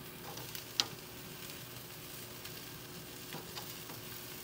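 Veal sweetbreads sizzling faintly and steadily on a hot grill grate over wood and charcoal, with a few sharp crackles, the loudest about a second in.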